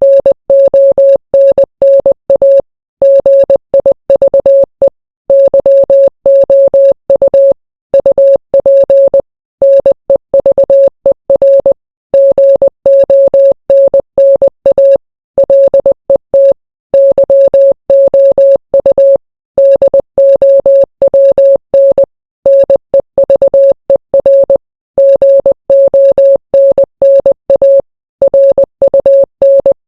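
Morse code played as a single steady beep, keyed on and off quickly in short dots and longer dashes, with brief pauses between letters and words.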